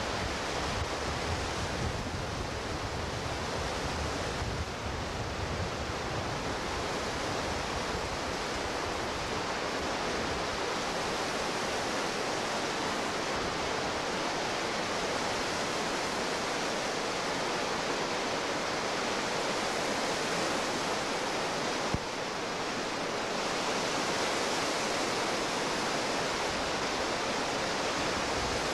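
Whitewater rapids rushing steadily, with one sharp click about three-quarters of the way through.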